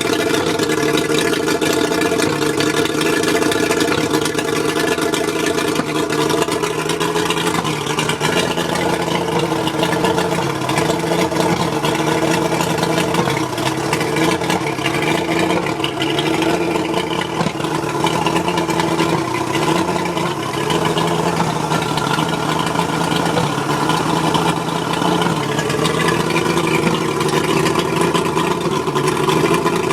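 Mercury 135 outboard motor running rough with a misfire, its engine speed wavering unevenly. The owner suspects the spark plugs.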